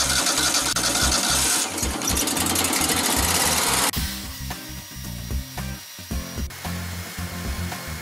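The portable band sawmill's engine runs loud and fast over background music with a steady bass line, then is cut off abruptly about four seconds in, leaving the music and a few faint clicks.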